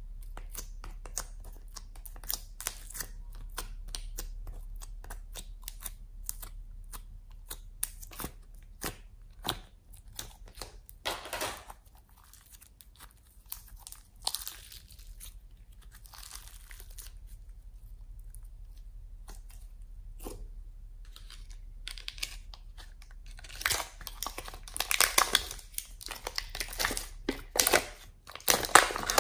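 Hands squishing, stretching and pressing glittery slime, and pushing it out of plastic palette molds. It makes quick sticky clicks and crackles, which grow denser and louder near the end.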